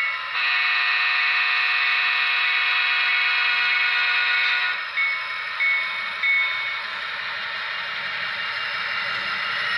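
Diesel air-horn sound played through the small speaker of a Tsunami DCC sound decoder in an HO scale model diesel locomotive. A long steady blast lasts about the first four and a half seconds, followed by a few short toots. The decoder's diesel engine sound then runs on underneath.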